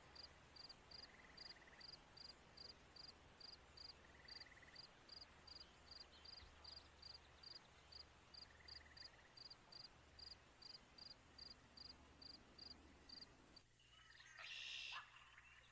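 Faint cricket chirping, a steady high chirp about two and a half times a second, with a few short lower trills now and then. Near the end the chirping stops and a few brief high calls follow.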